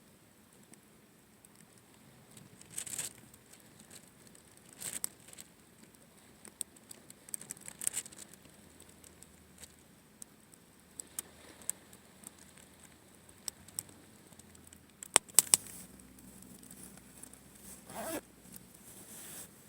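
Wood campfire crackling, with scattered sharp pops at irregular intervals and a quick loud pair of pops about three quarters of the way through.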